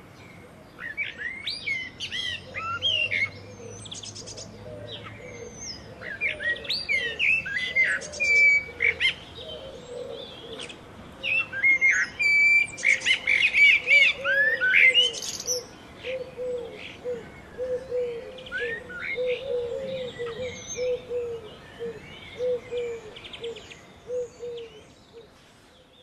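Blackbird singing: a series of warbled phrases separated by short pauses, some ending in a high twitter. A softer, lower repeated note runs underneath, becoming more regular from about halfway.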